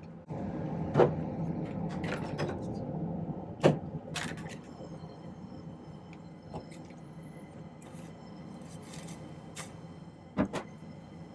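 Jeweller's soldering torch lit and running with a steady low roar while a small silver clasp is heated to flow the solder, with a few sharp metal clicks. After about four seconds the roar drops away and quiet sustained music tones carry on.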